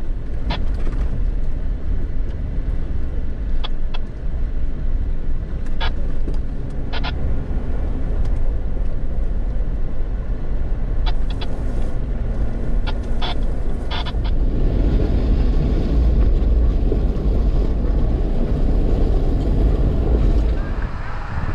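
Jeep driving slowly off-road over a dirt track and beach gravel: a steady low rumble of engine and tyres, with scattered short sharp clicks and knocks.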